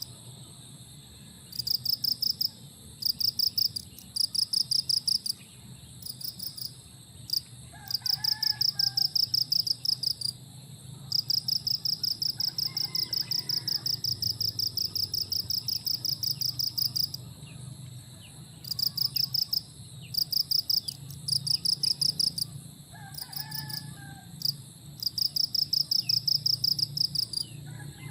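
Insects chirping in rapid high-pitched pulsing bursts, each lasting one to several seconds, with a few short bird calls in between.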